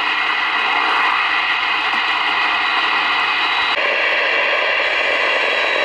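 Loud static hiss from a Midland Alan 78 Plus CB radio's speaker on channel 28 FM, with faint steady tones in the noise. The hiss changes tone abruptly about four seconds in.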